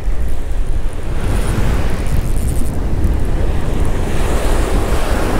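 Surf breaking and washing up the beach, with a wind of about 20 mph rumbling on the microphone. The rush of the surf swells about a second in and stays up.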